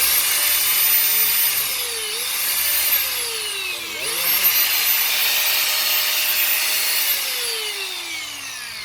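Corded 220 V Bosch power tool's electric motor run at full speed with a high whine, eased off about two seconds in and let run down before being restarted about four seconds in, then released and spinning down near the end.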